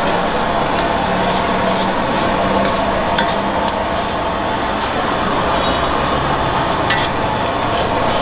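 Steady frying sizzle of noodles cooking in a pan, with a few sharp clinks of a metal utensil against the pan.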